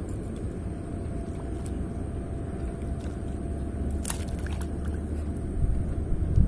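A fish splashing briefly at the water's surface about four seconds in, over a steady low rumble.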